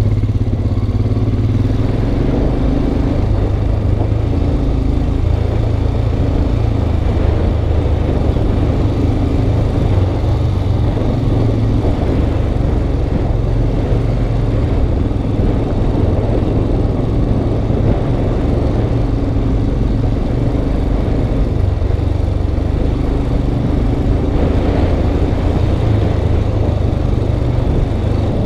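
Motorcycle engine running steadily at low speed, heard from a helmet-mounted camera over a dense rush of noise from the ride on a gravel road.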